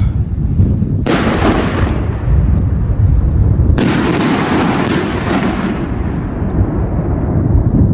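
Four-inch titanium salute aerial shell going off: a sharp bang about a second in with a long fading tail, then another sharp bang a little under three seconds later, quickly followed by two more, with echoes trailing away. Heavy wind rumble on the microphone throughout.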